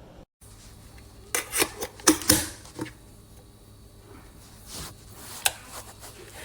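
A quick cluster of sharp clicks and knocks a little over a second in, then two more single clicks later, like a hard object being handled and set down.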